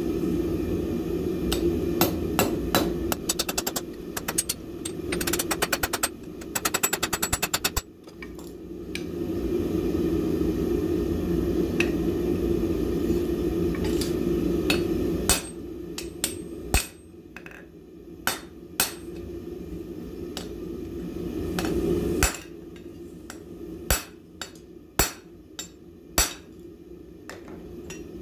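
Hand hammer peening a red-hot rivet on an anvil to join a pair of box jaw tongs: runs of quick, light blows, for a couple of seconds as fast as about eight a second, over a steady low hum. About halfway the hammering and hum stop, leaving scattered single metal knocks a second or two apart.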